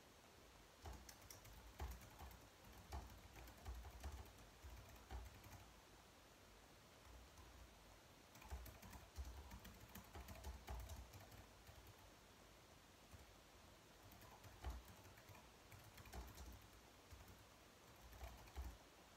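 Faint typing on a slim low-profile computer keyboard: quick key clicks in runs of a few seconds, broken by short pauses.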